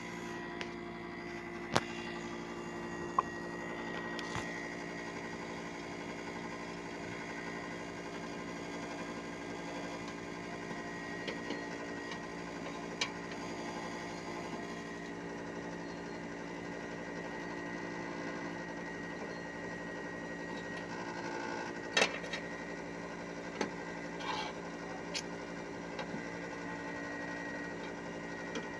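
Outdoor unit of a 1-ton Hitachi split air conditioner running steadily: a hum with a thin high whine over it, broken by a few sharp clicks early on and again about three quarters of the way through.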